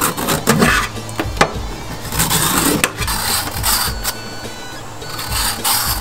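Metal vegetable peeler shaving the skin off a large cucumber, a series of quick scraping strokes about one a second.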